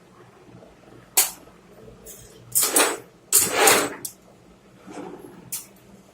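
Irregular clatter and scraping of hard parts being handled during a machine repair: one sharp knock about a second in, then a few longer scrapes and rattles.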